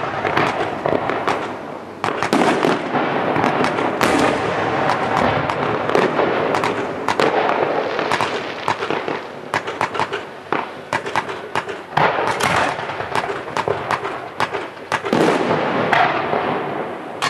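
Fireworks display going off: a continuous hissing rush with many sharp bangs and crackling reports in quick succession, thickest about halfway through.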